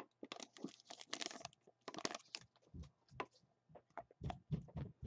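Trading card pack wrapper crinkling and cards being handled and slid against each other, a quick run of soft crackles, then several dull knocks from about three seconds in as the cards are tapped and set down.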